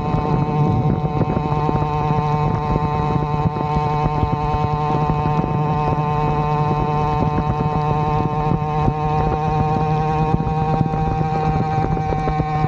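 Avenger 85 two-stroke motorized-bicycle engine, breathing through a Nibbi PE19 carburetor and a repaired Gomax expansion pipe, running steadily under way at an even engine speed that starts to ease off right at the end.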